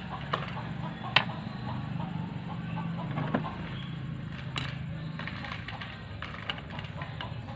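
A few sharp metallic clicks and taps as a hex key and loose parts knock against the aluminium body of an AC vacuum pump being taken apart, the loudest about a second in, over a steady low hum.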